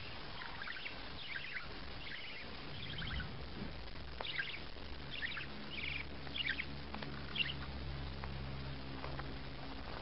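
Budgerigar chirping in quick clusters of short, falling notes, repeated every second or so.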